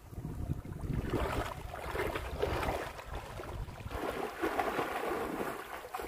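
Water splashing in uneven surges as a person wades quickly through shallow river water, over a low rumble of wind on the microphone.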